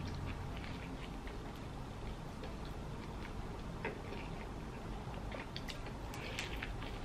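A person chewing a mouthful of a soft bread-roll burger slider close to the microphone: faint wet clicks and smacks of the mouth, scattered and a little busier near the end.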